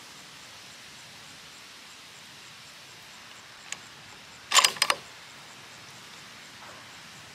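Bolt of a Savage Axis II .243 bolt-action rifle being worked by hand to chamber a round: one click a little before the middle, then a quick run of four or five sharp metallic clicks as the bolt is opened, drawn back, pushed forward and locked down.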